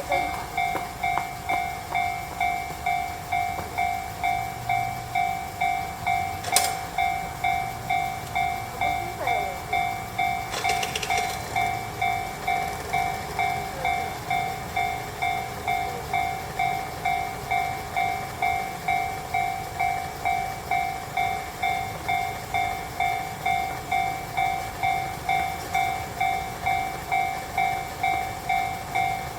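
Japanese level crossing's electronic warning bell ringing steadily, a little under two strokes a second, sounding while the crossing is closed. A sharp click about six and a half seconds in and a brief noisy burst about eleven seconds in stand out from it.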